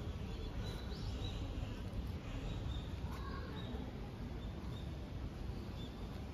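Steady low background noise with a few faint, short bird calls.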